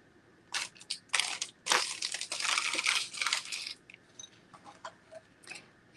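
Crinkling and rustling of packaging being handled, a dense run of rustles over the first few seconds, then a few light clicks and taps.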